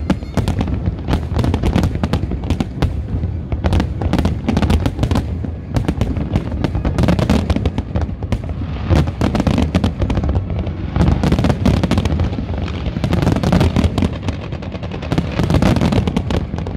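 Large fireworks display: a non-stop barrage of aerial shells bursting, with rapid, overlapping booms and bangs.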